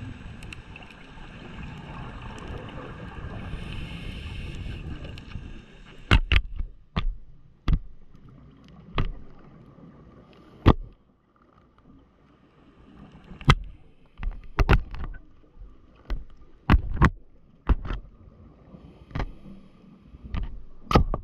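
Triggerfish biting the waterproof housing of an underwater GoPro camera: well over a dozen sharp, irregular crunching cracks, starting about six seconds in, after a few seconds of steady underwater hiss.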